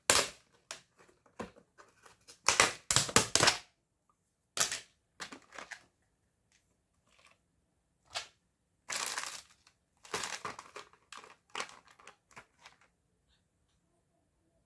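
Crinkling and rustling of something being handled, in a dozen or so irregular short bursts that stop near the end.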